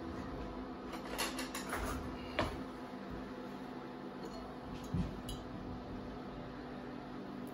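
Steady fan hum under a few light clinks and knocks of a stainless steel pot and its lid, the sharpest about two and a half seconds and five seconds in.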